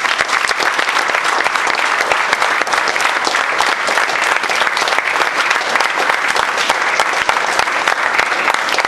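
Audience applauding: many people clapping at once, at an even level throughout.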